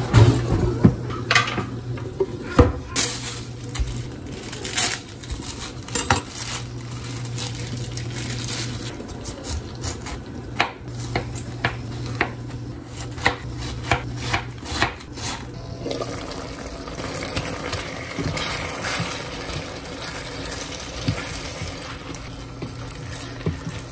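Kitchen utensils clinking and knocking against pots, pans and dishes, with many sharp strikes through the first two-thirds and softer handling noise after that.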